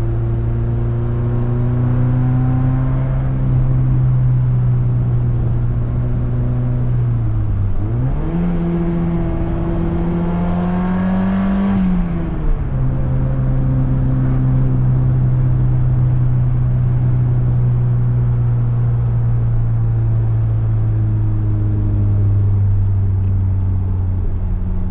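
SR20DET turbocharged four-cylinder engine in a 1973 Datsun 240Z running steadily at cruise. About a third of the way in, the revs dip, then climb for about four seconds under acceleration, then fall back to a steady cruise.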